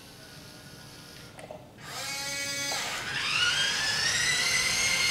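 Small electric motor of a 1/14-scale remote-control wheel loader whirring. A buzzing tone starts about two seconds in, then a whine rises in pitch a second later and holds steady as the motor spins up to speed.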